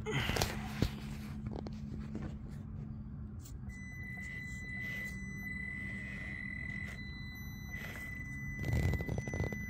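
Traxxas TRX-4M mini crawler's electric motor and geared drivetrain running under throttle on rock, a low steady hum joined about four seconds in by a steady high-pitched whine. Short scraping bursts come at the start and near the end.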